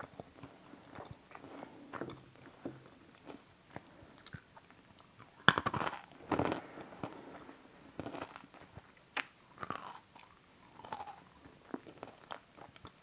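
A person chewing crunchy sweets close to the microphone, a nut-studded chocolate bar and almonds, with a run of small crackling clicks. About five and a half seconds in comes one loud crunching bite, the loudest sound, followed by a second burst of crunching.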